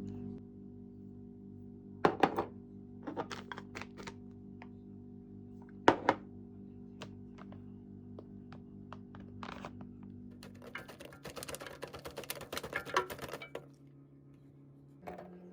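Quiet background music under kitchen handling sounds: a few sharp knocks about two and six seconds in, and a stretch of rapid rustling and clicking from about eleven to thirteen seconds.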